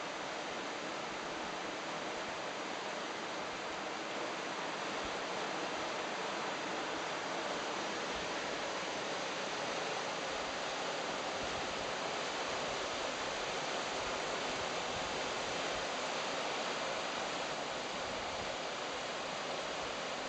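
The fast current of the Gave river rushing over broken, rippled shallows: a steady, even rush of water.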